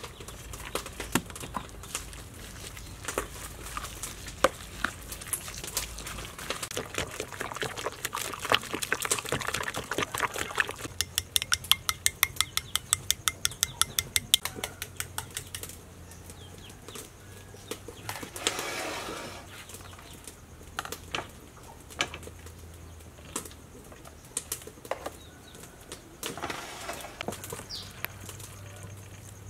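A metal spoon stirring and clinking in bowls as a ground-pork mixture is worked together, with a run of rapid, even clicks midway, about five a second, as egg is beaten with a spoon in a small ceramic bowl.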